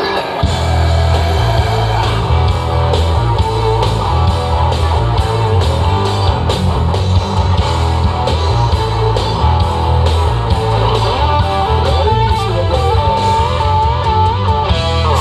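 Live rock band playing an instrumental passage: electric guitar over heavy bass and a steady drum beat, with no vocals.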